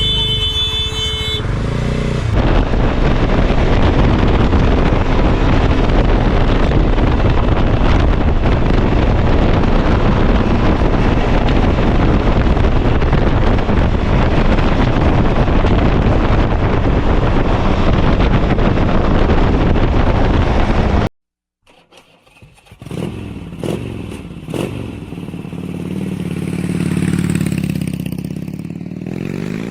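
Heavy wind rushing over the microphone of a moving motorcycle, with a steady horn-like tone in the first second. After a sudden cut about 21 s in, the VOGE 300DS's single-cylinder engine runs and revs, its pitch rising near the end.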